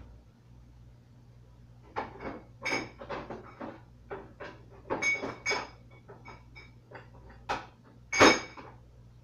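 Kitchen clatter of dishes and cupboards being handled: a quick run of knocks and clinks beginning about two seconds in, with the loudest knock near the end.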